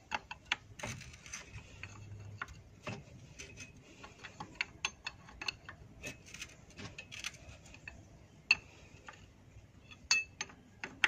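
Metal wrench clicking and clinking on a stiff, seized nut as it is worked back and forth to loosen it: a run of irregular sharp metallic ticks, a few louder knocks near the end.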